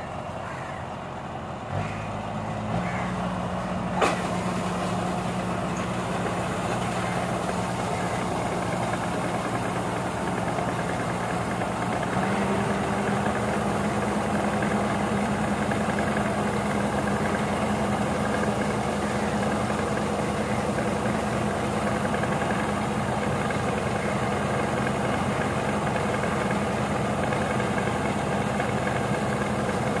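Kubota ARN698 combine harvester's diesel engine running steadily. Its note rises about two seconds in, a single sharp clank comes about four seconds in, and about twelve seconds in the engine speeds up again and gets louder, while the unloading auger is swung out to discharge grain.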